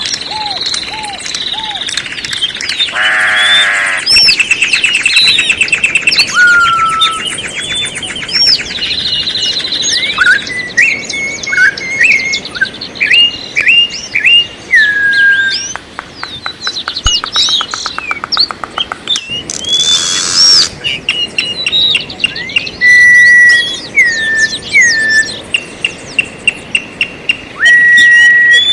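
Several songbirds singing and calling together: overlapping clear whistles sliding down in pitch, fast trills and short chirps.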